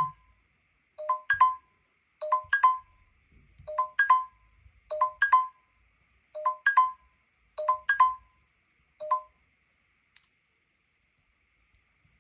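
Samsung Galaxy phone's alarm tone: a short group of bright beeping notes repeating about every 1.3 seconds, stopping about nine seconds in.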